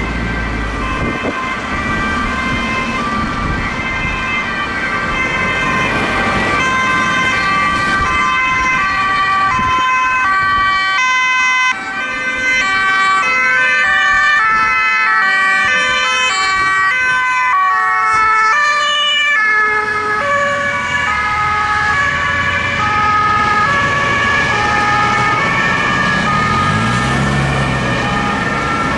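Several emergency-vehicle sirens of a police convoy sounding at once, their stepped two-tone notes overlapping and out of step with one another, over the engines of the cars driving past.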